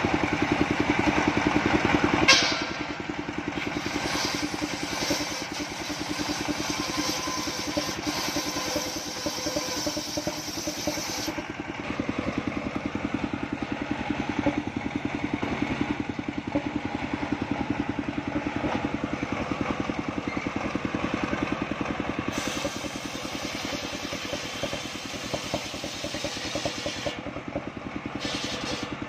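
Engine-driven portable circular sawmill running steadily while its blade saws through coconut-palm trunk. A rasping sawing noise over the engine is stronger in the first third and again near the end. There is one sharp loud crack about two seconds in.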